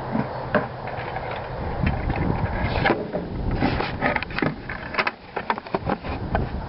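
Handling noise of a padlock and lock-pick tools: irregular small clicks, taps and rattles, busier from about two seconds in, over a low background rumble.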